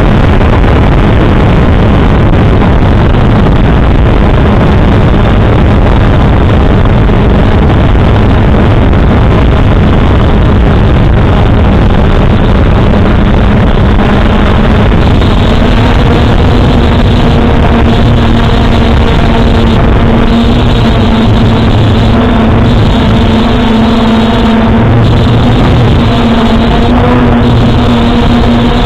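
A small quadcopter drone's motors and propellers buzzing steadily, heard loud and close through the drone's own camera microphone together with air rush. About halfway through, a steady hum with overtones comes through more clearly over the noise.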